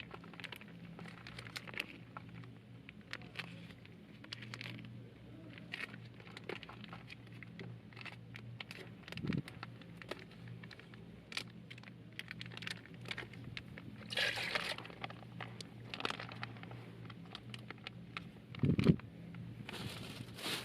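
Crinkling and rustling handling noises with many scattered clicks, over a faint steady low hum. There is a louder rustle about 14 seconds in and a single dull thump near the end.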